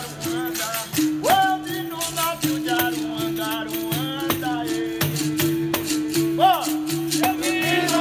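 Capoeira music: a berimbau's wire struck with a stick in a steady rhythm, its held notes shifting in pitch, with the caxixi basket rattle shaking along and a pandeiro's jingles. A man sings a capoeira song over it.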